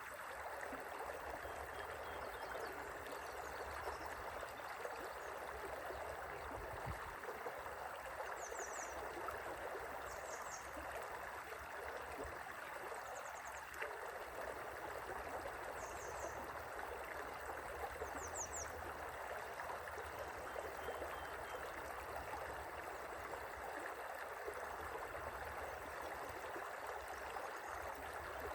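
River water flowing in a steady, even rush of current.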